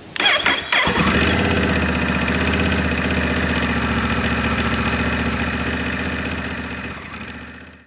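Motorcycle engine starting up, catching within the first second, then idling steadily and fading out near the end.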